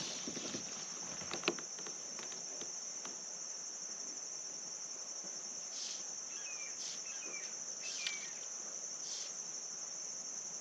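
Summer insects droning in a steady high chorus. A sharp click about a second and a half in, and a few short chirps a little past the middle.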